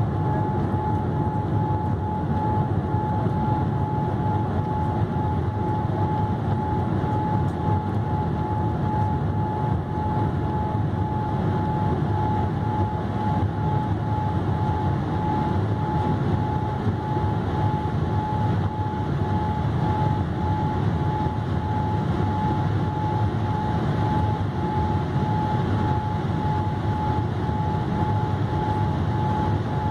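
Steady cabin noise inside a Boeing 787-8 climbing after takeoff: an even rush of engine and airflow noise with a steady high tone running through it.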